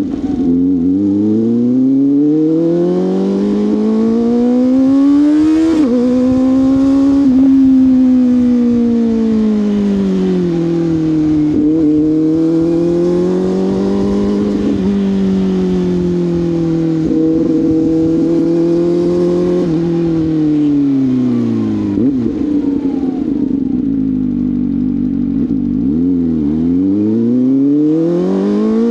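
CFMoto 500SR Voom's parallel-twin engine through an SC-Project carbon slip-on exhaust, pulling up through the gears with a short dip in pitch at each shift. It slows down about two-thirds of the way through, then accelerates again near the end.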